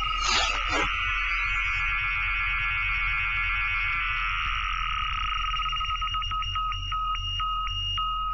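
Synthesized electronic sound effects: two steady high tones with a dense warbling trill over them that fades out about halfway through, followed by a run of quick ticks, over a steady low hum.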